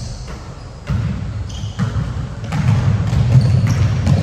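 Basketball game on an indoor court: a ball bouncing on the floor, with a few short high shoe squeaks. A low rumble swells about a second in.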